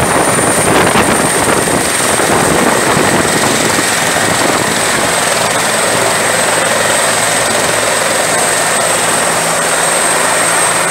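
Bell 212 helicopter running on the ground: a loud, steady rush of rotor and engine noise with a high, constant turbine whine over it.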